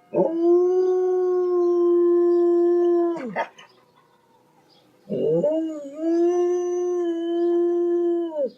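A dog howling: two long, steady howls of about three seconds each, separated by a short sharp cry. Each howl falls in pitch as it ends.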